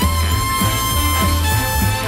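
Upbeat recorded dance music: one long held high note over a steady pulsing bass line, about two bass pulses a second.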